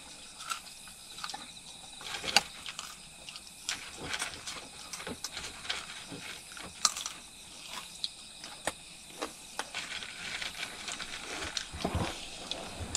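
Irregular light clicks and knocks, a few louder than the rest, over a faint steady hiss.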